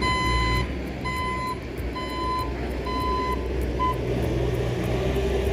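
A vehicle backup alarm beeping about once a second, five beeps that stop about four seconds in, over the steady low running of an engine.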